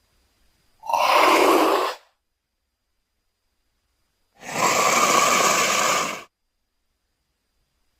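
Two breathy creature vocal sound effects made for a Theriognathus: a call about a second long starting about a second in, then a longer one of about two seconds starting a little after four seconds in, with silence between them.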